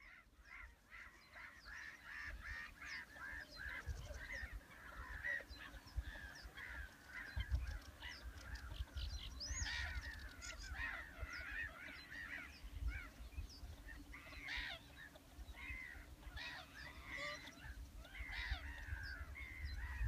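A flock of birds calling, many short overlapping honking calls without a break, over a low rumble underneath. The sound fades in at the start.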